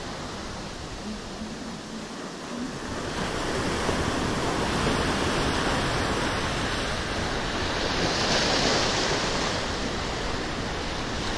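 Ocean surf breaking and washing, with wind on the microphone; the wash grows louder about three seconds in and swells again around eight seconds.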